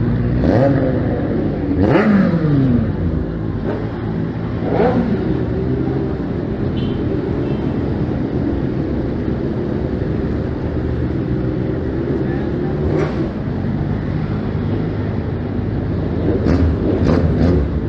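Several large-displacement motorcycle engines running at low speed in a group ride, steady throughout, with a few short revs that rise and fall, about two seconds in and again around five and thirteen seconds.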